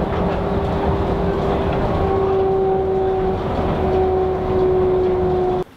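Inside a Venice Translohr rubber-tyred tram running at speed: a steady rolling rumble with an electric motor whine at two steady pitches that grows stronger about two seconds in. The sound cuts off suddenly near the end.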